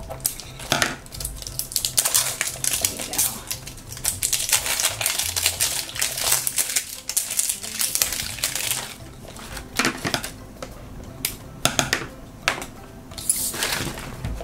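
Thin plastic shrink wrap crinkling and rustling as it is snipped with scissors and peeled off a hard plastic toy pod, with a dense run of small clicks and snaps from the plastic being handled.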